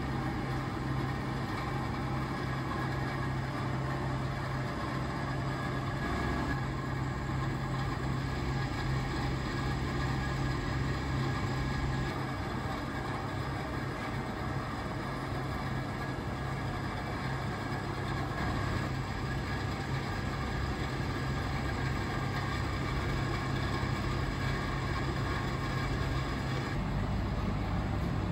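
Steady low hum of running machinery with a constant background hiss; the tone and noise shift slightly at a few cuts.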